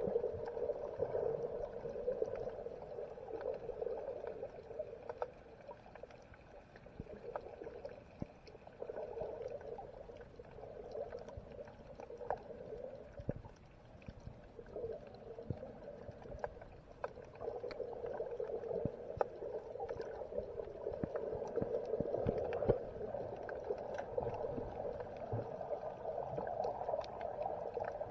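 Underwater ambience heard through a camera held beneath the surface: a steady, muffled rush of moving water that swells and fades slowly, with scattered faint clicks and ticks.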